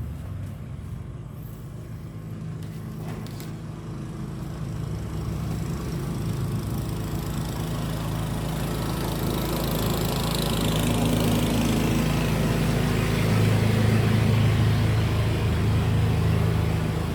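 A steady low motor hum, engine-like, that grows gradually louder, with a hiss building over it.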